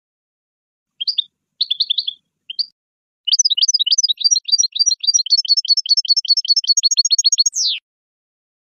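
European goldfinch song: a few short twittering notes, then a fast run of repeated chirps, about eight a second for around four seconds, ending in a sharp downward sweep.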